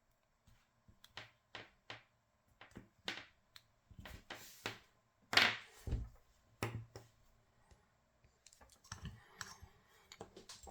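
Scattered small clicks and knocks of tools and connector parts being handled on a workbench, with a louder knock about five and a half seconds in.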